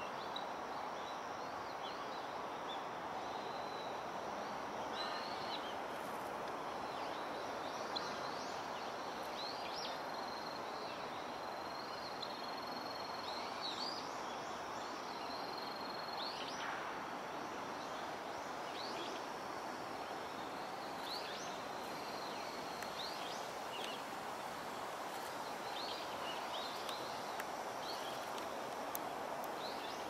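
Outdoor ambience: a steady background rush with frequent short, high bird calls scattered throughout. A thin steady high tone holds for a few seconds about midway.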